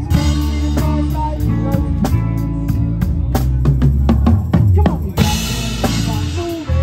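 A live rock band playing, with the drum kit to the fore: a rapid drum fill from about three seconds in, ending in a cymbal crash about five seconds in, over steady bass tones.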